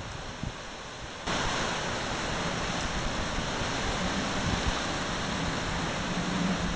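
Tropical-storm wind rushing, a steady noise that suddenly grows louder about a second in.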